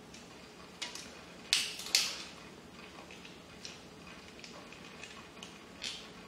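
Crab leg shells cracked and snapped apart by hand: a few sharp cracks, the two loudest about a second and a half and two seconds in, with fainter ones later.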